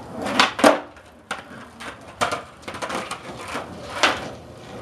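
Skateboard deck and wheels knocking on concrete during flat-ground trick attempts: a series of sharp knocks, the loudest within the first second, from tail pops and landings.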